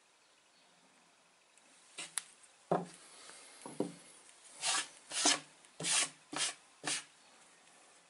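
Stones and a neodymium bar magnet knocking and scraping on a wooden tabletop: a few sharp knocks about two seconds in, then five short scraping strokes about half a second apart.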